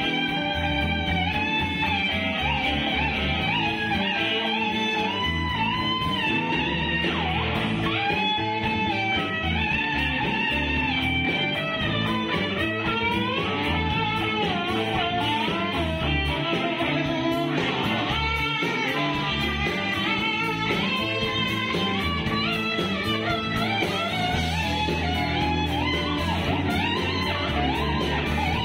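Guitar played flat, lap-style, with a slide: a bluesy line of notes that glide up and down, over a steady low accompaniment.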